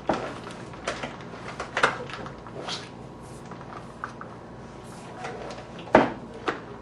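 Irregular knocks and clicks of a condiment dispenser's pouch and pump being handled and set into the pouch support. The loudest knock comes about six seconds in.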